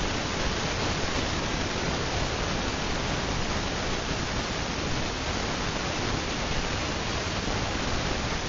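Hunter Low Profile 42-inch ceiling fan running at speed, a steady, even rush of air from its spinning blades with no audible motor hum or clicks.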